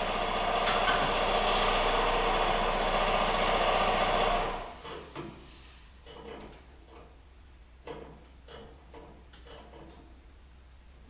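A loud shop machine running steadily, then winding down and stopping about four and a half seconds in. After it stops there are a few light knocks and clicks.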